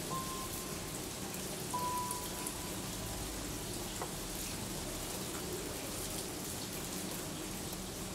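Steady rain falling, an even hiss. Two short, thin steady tones sound within the first few seconds.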